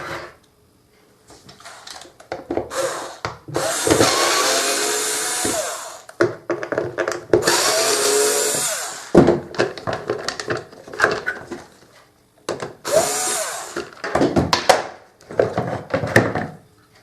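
Parts of a Samsung SC4520 vacuum cleaner's motor and plastic housing being shifted by hand: several stretches of creaky rubbing and scraping, each one to two and a half seconds long, with clicks and knocks between them.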